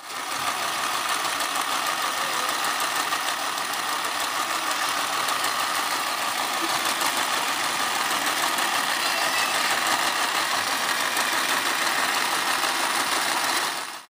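Small electric mini sewing machine running steadily, its motor driving the needle up and down as it stitches through a thick terry towel.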